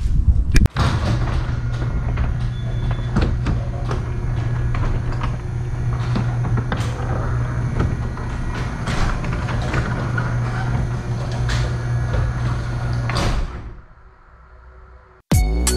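Electric garage door opener running as the sectional garage door closes: a steady motor hum with rattling and clicking along the track, stopping about thirteen seconds in as the door shuts. Music starts just before the end.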